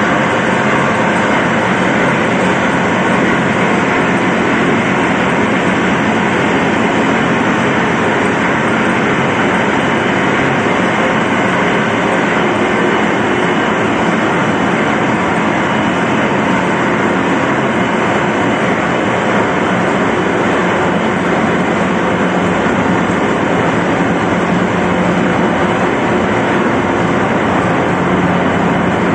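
A ship's marine diesel engine running at a steady speed, its flywheel and shaft turning, heard as a loud, unchanging machinery drone inside the engine room.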